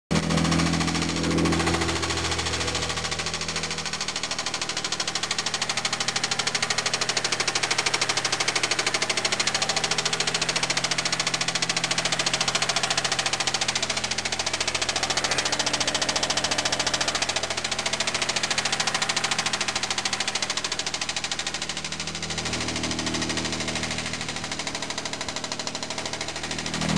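Mitsubishi 3000GT VR4's twin-turbo V6 running steadily with a rapid, even knocking: rod knock, the sign of a failed connecting-rod bearing in the swapped-in engine.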